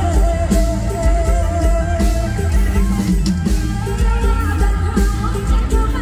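Live Thai mor lam band music: heavy bass and a drum kit on a steady beat, with a voice singing the melody.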